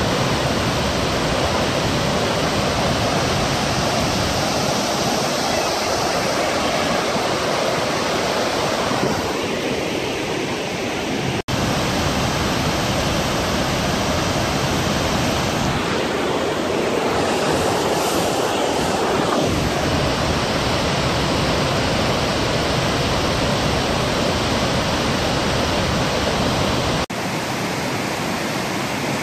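Waterfall and river rapids in spate: a loud, steady rush of white water. The sound breaks off for an instant twice, about eleven seconds in and near the end.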